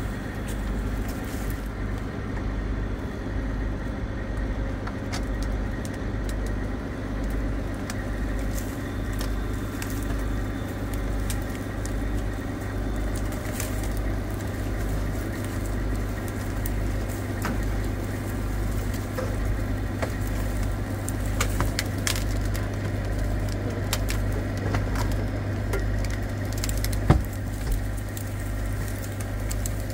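Heavy-duty wrecker tow truck's diesel engine running steadily as a low, even rumble, with scattered light ticks and cracks of brush and one sharp crack near the end.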